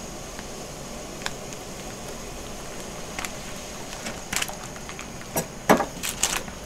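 Steady hiss under a pot of ramen broth heating on a portable burner; from about four seconds in, a handful of sharp clicks and knocks as plastic chopsticks stir the soup and tap against the pot.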